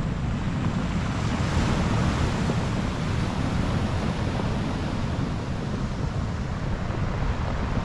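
Sea surf breaking and washing on a pebble beach, with wind buffeting the microphone.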